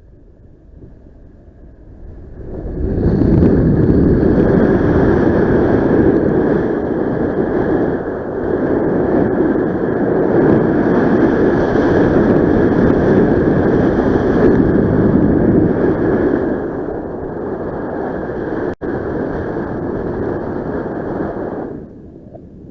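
Wind rushing over the microphone during a paraglider flight, swelling up sharply about two and a half seconds in and dropping away shortly before the end, with a steady high tone underneath.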